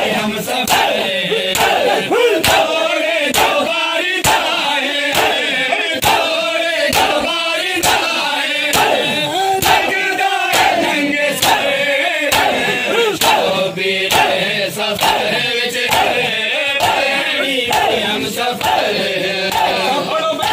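A crowd of men chanting together in mourning while beating their bare chests with their hands (matam): sharp, unison slaps in a steady beat, a little under two a second, over the loud chanting voices.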